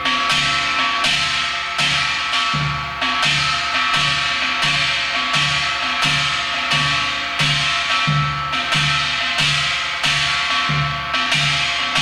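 Korean janggu (hourglass drum) played in the hwimori rhythm of Gyeongsang-do gut, patterns 1 and 2 linked at a slow practice tempo: an even beat of strokes a little under two a second, each with a deep thud and a crisp slap, over steady ringing tones.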